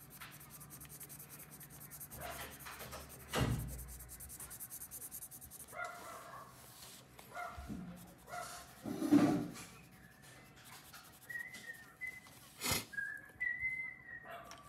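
Coloured pencil scratching back and forth on paper, with a couple of sharp knocks from the table or paper. Later, a thin, high, slightly wavering whine sounds a few times.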